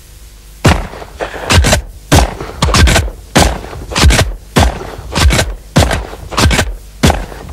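A Benelli semi-automatic shotgun firing a rapid string of loud shots, about two to three a second, starting just under a second in.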